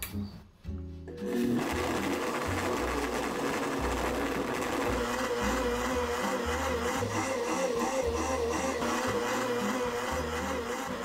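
Blendtec countertop blender switched on about a second in and running steadily at high speed, its motor tone wavering slightly.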